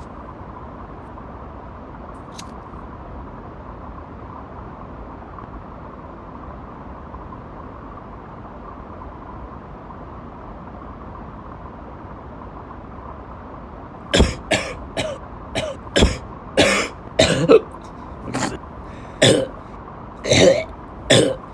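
A steady faint hiss, then about two thirds of the way through a fit of loud chesty coughing breaks out: over a dozen harsh coughs in about seven seconds, coming in quick clusters.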